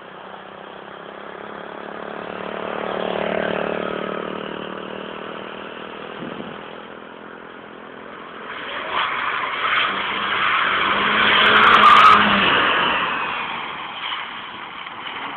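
A 163 hp Mercedes-Benz car being driven hard. The engine swells and fades a few seconds in, then the tyres skid and squeal from about eight seconds, loudest around twelve seconds, before dying away near the end.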